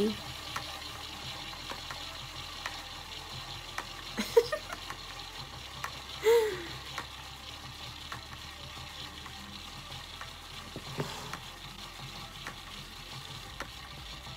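Toy mini washing machine's small motor running with water and a wet makeup sponge inside: a steady fizzing churn with light scattered ticks, the motor struggling because the sponge is too heavy for it.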